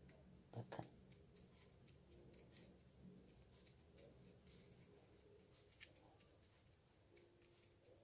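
Near silence with faint scattered ticks and light scratching: a pom-pom sponge dabbing white paint onto the dry scales of a pine cone.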